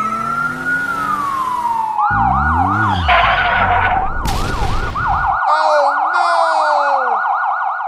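Emergency-vehicle siren sound effect: a long wail that falls away over the first two seconds, then switches to a fast yelp cycling up and down, with other cartoon sound effects mixed in.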